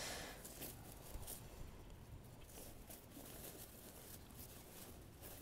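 Faint rustling and handling of a fabric drawstring stuff sack holding a compressed camping pillow, with a few small soft clicks.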